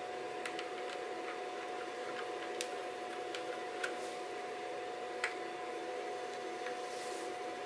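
Light, scattered clicks and taps of fingers handling the plastic body of a DJI FPV drone as parts are fitted back on, about five in all, over a faint steady hum.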